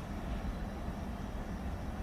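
Train running past with a steady low rumble.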